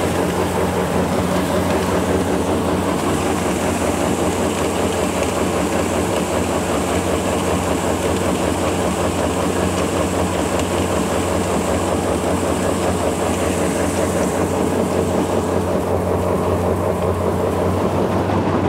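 Grain auger unloading mixed chicken feed into a wooden feeder, its drive engine running steadily under a continuous rattling hiss of grain pouring down the spout.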